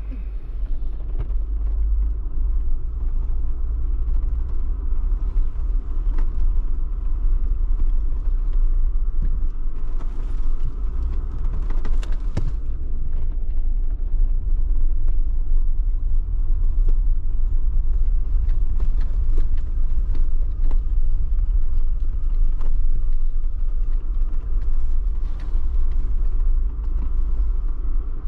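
Vehicle driving slowly over a rough dirt lease road: a steady low rumble with scattered creaks and knocks, with a brief cluster of knocks about ten to twelve seconds in.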